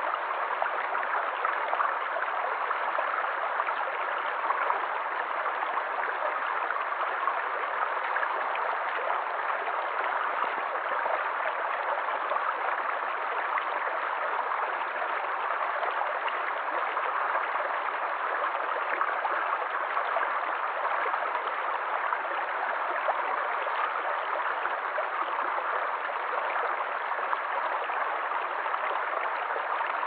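Shallow rocky stream babbling over stones: a steady, unbroken rush of running water.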